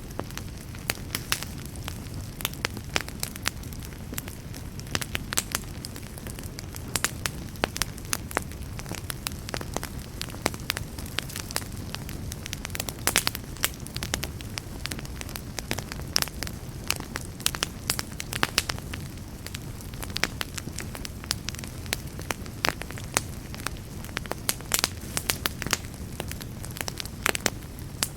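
Wood fire burning steadily, with a low rumble under frequent irregular sharp crackles and pops.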